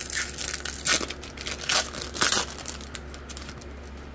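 Foil trading-card pack wrapper being torn open and crinkled: a run of crackling rustles, loudest about one, two and two-and-a-half seconds in, dying away near the end.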